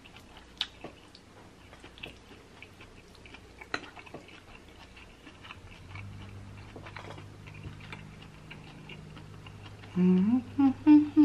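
Quiet eating sounds: soft mouth clicks and a few light fork clicks while pasta is twirled, with a faint steady low hum from about six seconds in. Near the end a louder hummed 'mm' of enjoyment, wavering in pitch.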